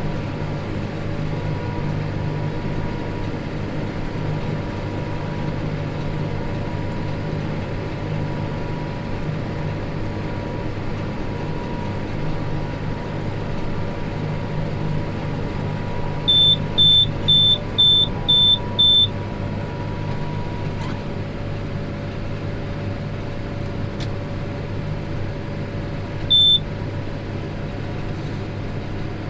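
Tractor engine running steadily while baling. About halfway through, six short high electronic warning beeps sound about two a second, with one more single beep near the end.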